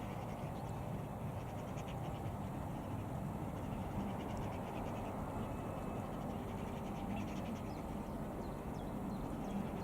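Strong wind rushing and buffeting the microphone, a steady low rumble.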